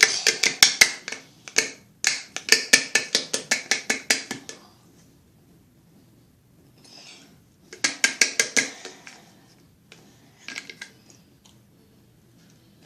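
Plastic glue bottle being shaken to get the glue out, rattling in rapid clicks of about eight to ten a second. There are four bursts, the last two shorter, with quiet gaps between them.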